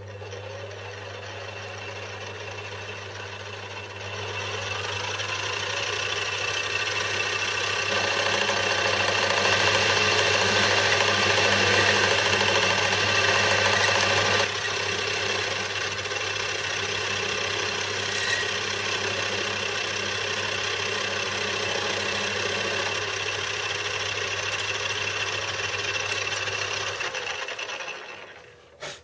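Benchtop metal lathe running, its motor and gear train humming and whining steadily while the tool cuts an aluminium crank release lever held in the chuck. The noise grows louder about four seconds in and is loudest for several seconds in the middle. Near the end the lathe is switched off and runs down to a stop.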